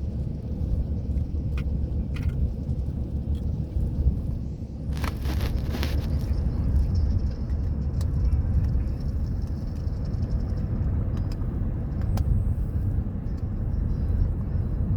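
Steady low road rumble inside a moving car's cabin, with a brief hiss lasting about a second about five seconds in and a few faint clicks.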